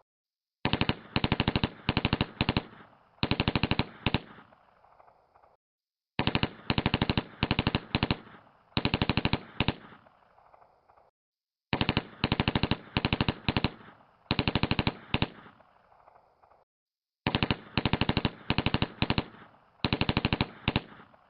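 Firecrackers going off in rapid runs of sharp cracks, each cluster trailing off, the same stretch repeating about every five and a half seconds with dead-silent gaps between, four times.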